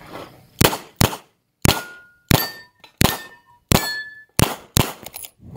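About nine handgun shots fired in quick succession, roughly one every half second, with steel plate targets ringing briefly after several hits.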